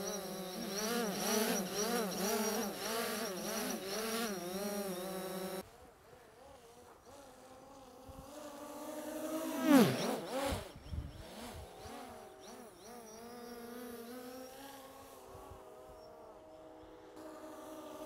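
Quadcopter drone's propellers buzzing, the pitch wavering up and down as the motors work. The sound drops off suddenly about six seconds in, and near the ten-second mark the drone flies past at speed with a steep fall in pitch.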